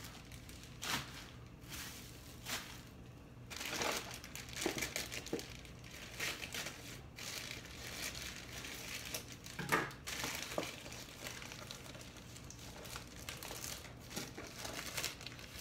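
Plastic shipping mailer being opened by hand, the plastic crinkling and tearing. There are a few sharp clicks in the first seconds and a louder snap near the middle.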